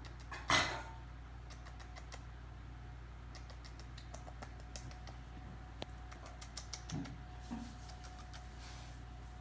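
Yorkshire terrier puppy chewing a small treat held to its mouth: scattered tiny crunchy clicks coming in short clusters, after one short louder rustle about half a second in.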